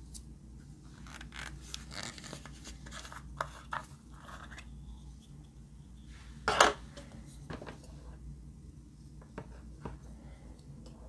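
A small plastic makeup powder jar being picked up and handled, with scattered clicks and scrapes and one loud sharp clack about six and a half seconds in; a makeup brush then scratches briefly in the powder.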